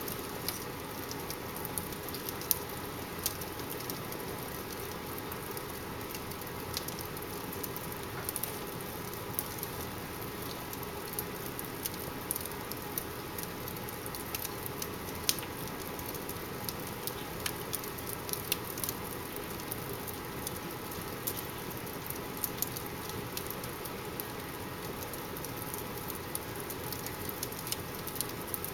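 Wood fire burning in a fireplace, crackling with irregular sharp pops over a steady hiss.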